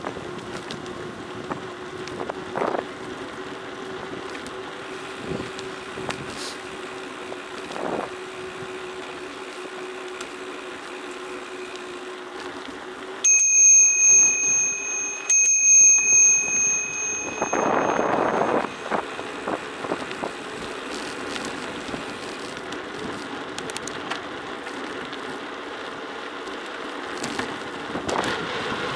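A bicycle rolling and rattling down a forest road. A bicycle bell is struck twice about two seconds apart, midway through, and each time it rings on and fades.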